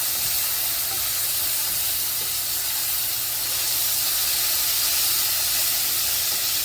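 Beef tips and vegetables sizzling steadily in a hot pan.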